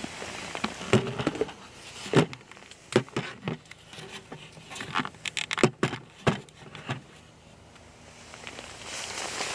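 Nylon sleeping-bag fabric rustling as a person shifts in it, with scattered sharp clicks and knocks; it dies down about seven seconds in.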